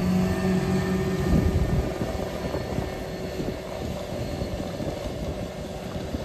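John Deere tractor pulling a Lemken Solitair DT disc drill past, its engine running with a steady hum over the rumble of the discs working the soil. The hum drops away after about two seconds and the sound fades as the rig moves off.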